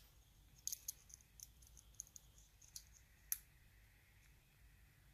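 Faint metallic clicks from a hook pick lifting pins in a Sparrows Revolver practice lock: about ten small clicks over two and a half seconds, the last the sharpest. The chamber being worked holds a serrated security pin.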